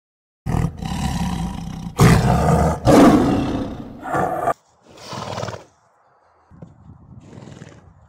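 A tiger roaring: a long, loud, rough roar starting about half a second in, loudest around two and three seconds, dying away by four and a half seconds, then a shorter, softer call around five seconds, and fainter sounds near the end.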